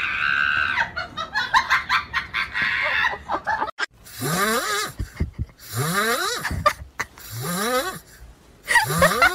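A run of quick clicks for the first few seconds. Then a sleeping cat snores four times, each snore rising in pitch, about a second and a half apart.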